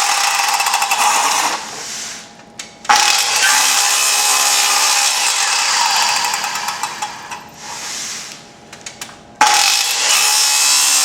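Circular saw running and cutting wood. Twice it fades and winds down for about a second, then comes back on with a sudden start, about three seconds in and again near the end.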